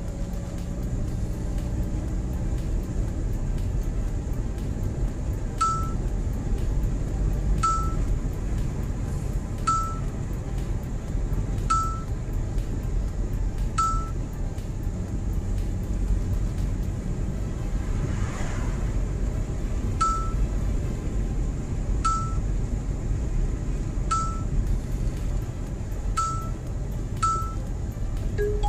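Steady road and engine rumble inside a moving car's cabin, with a short, high electronic beep about every two seconds from the navigation unit, warning of an approaching speed enforcement section.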